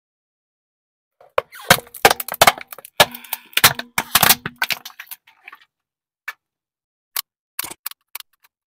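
Hard plastic toy race car cracking and snapping as a car tyre rolls onto it: a dense run of sharp cracks starting about a second in, thinning to a few scattered clicks near the end.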